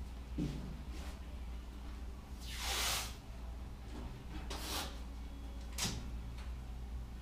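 Painter's tape being pulled off the roll with a rasping rip, one longer pull about three seconds in and two shorter ones after, over a steady low hum.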